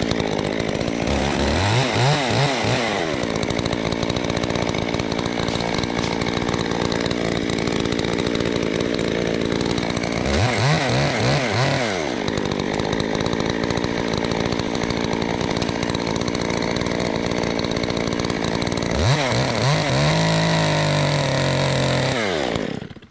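Chainsaw running at full throttle through a cut. Its revs drop and climb back three times, about two seconds in, around ten to twelve seconds, and near the end. It stops just before the end.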